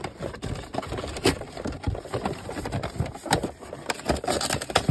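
Hands working a cardboard trading-card collection box open: irregular scraping, rubbing and sharp clicks of cardboard and plastic packaging being pried and pulled.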